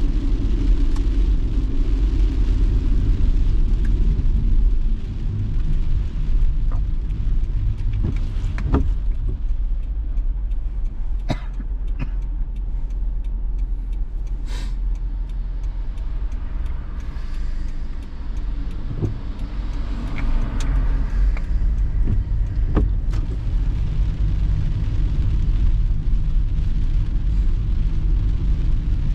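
Car driving on a rain-wet road, heard from inside the cabin: a steady low rumble of engine and tyres with a faint hiss, softer for a stretch in the middle, with scattered sharp taps.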